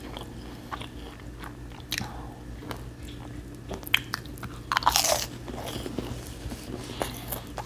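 Close-miked biting and chewing of an airy Japanese snack with a firm outer layer and a cotton-candy-like inside: scattered soft crunches and mouth clicks, loudest about four to five seconds in.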